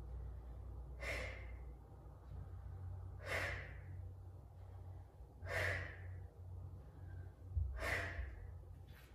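A woman breathing out hard four times, about once every two seconds, as she works through repeated glute bridges. A faint low hum runs underneath.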